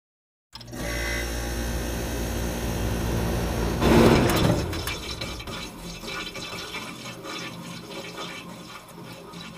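Logo-intro sound effect: a low, whooshing rumble that swells into a loud hit about four seconds in, then a crackling tail that slowly fades.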